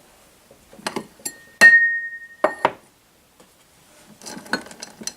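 Glass clinking: a few light knocks, then one sharper strike that rings with a clear high tone for about a second, followed by two more quick clinks.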